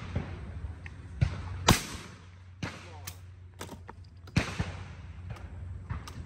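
Two shotgun shots about two and a half seconds apart, with several fainter pops and clicks between and after them.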